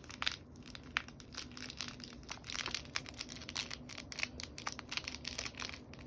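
Slime being handled and squeezed, giving a run of irregular crinkly clicks and small pops.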